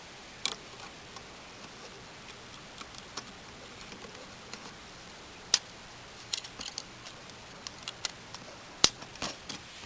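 Plastic LEGO Bionicle pieces being handled and snapped together: scattered sharp clicks, with a few louder snaps about half a second in, about halfway through, and near the end, and clusters of small ticks in between.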